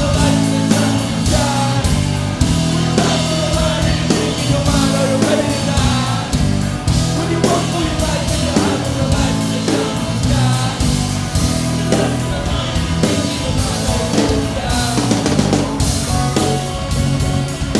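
Live band music at full volume: electric guitar and synthesizers over bass and a steady drum beat, with no break.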